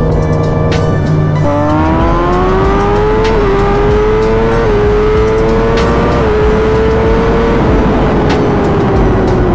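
Kawasaki ZX-10R inline-four engine running hard at highway speed. Its note drops about a second and a half in, then climbs steadily with three brief dips as the bike accelerates through the gears, and eases off slightly near the end.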